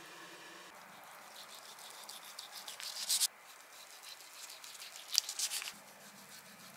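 A chef's knife slicing through a rolled egg omelette onto parchment over a wooden board: two cuts, each a short run of crisp scraping strokes, the first stopping abruptly. Just before them, a faint sizzle from the omelette pan.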